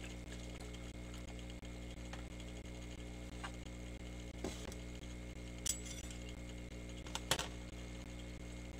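A few light clinks and knocks of a bottle, a bowl and a spoon being handled on a stainless-steel worktable, the loudest a double knock near the end, over a steady low hum.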